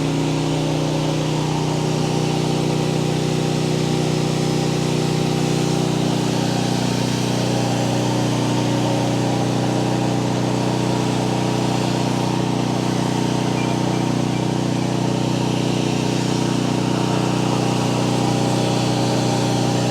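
Pressure washer's engine running steadily, with a steady hiss over it; the engine note shifts slightly about six seconds in.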